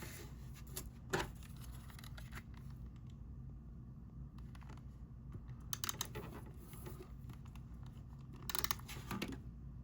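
Cardstock pieces being handled and slid against each other: a few short scratchy rustles and scrapes of paper, with a quick run of them near the end.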